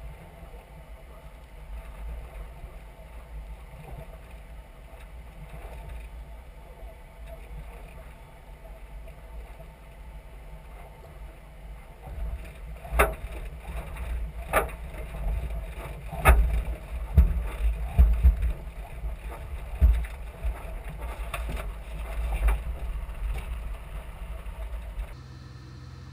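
4x4 driving over desert sand dunes, heard from a camera mounted on its roof: a steady low rumble, with a series of loud knocks and thumps from about halfway in. Just before the end it changes to a steadier hum.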